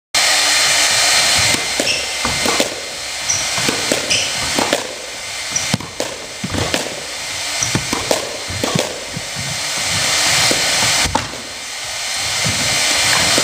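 Squash rally: the ball struck by rackets and smacking off the walls in sharp irregular cracks, with a few brief shoe squeaks on the court floor, all over a loud steady hiss.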